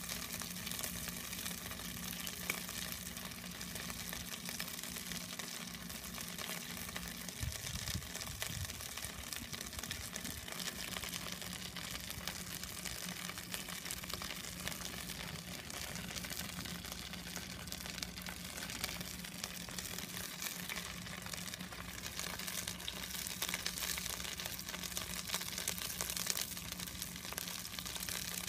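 Chicken karaage deep-frying in hot oil: a steady, crackling sizzle. A low steady hum runs underneath.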